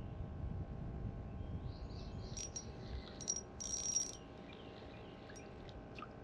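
Outdoor creekside ambience: a low rumble, with a few short high-pitched chirps about two to four seconds in.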